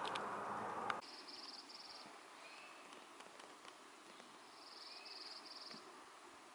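A small songbird singing twice: each song is three short, high, buzzy trills with a fainter lower slurred note. Before the first song, a rush of noise cuts off with a click about a second in.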